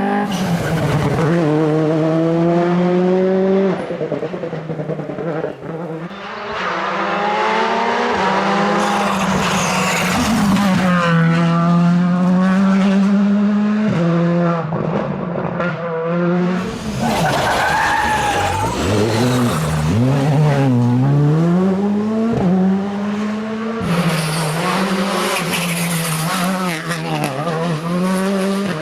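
Rally car engine at high revs, its pitch climbing and dropping again and again through gear changes and lifts off the throttle.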